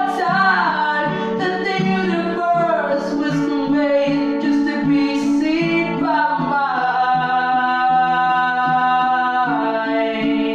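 A person singing to a baritone ukulele played with a capo, in a small tiled bathroom. The voice holds one long note for about three seconds in the second half, then steps down.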